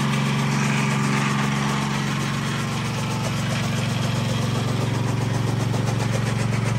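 Small petrol engine running steadily as it drives a fodder-chopper (toka) flywheel; its note thickens into a faster, more even pulse about two seconds in.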